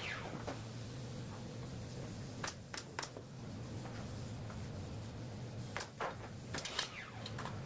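A few scattered short knocks and clicks over a steady low hum: two or three about two and a half to three seconds in, and a few more near the end.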